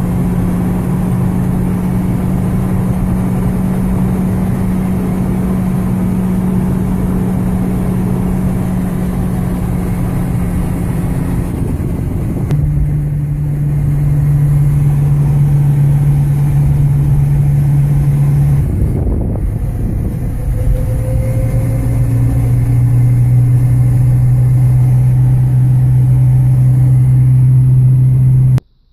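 Car engine and road noise of a moving car, a steady drone over a rumble of tyre noise. The drone's pitch drops abruptly twice, and the sound cuts off suddenly near the end.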